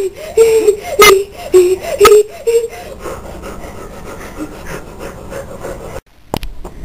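A boy's voice making a string of short, whiny vocal noises, each note bending up and back down, about two a second, with sharp clicks about once a second; the noises stop after about two and a half seconds and it goes quieter.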